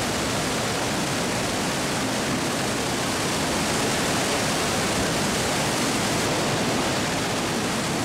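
Waterfall pouring into a rock pool, a steady, even rush of falling water.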